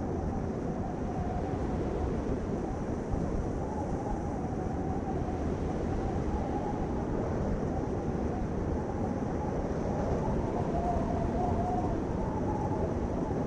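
Steady low rumbling noise of a vehicle on the move, with a faint wavering hum in it.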